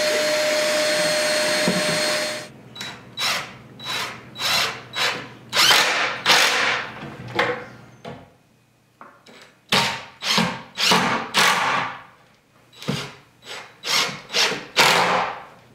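Corded drill running steadily with a whine as it bores pocket holes through a pocket-hole jig. After about two and a half seconds this changes to a cordless drill driving screws in many short trigger bursts, with two brief pauses.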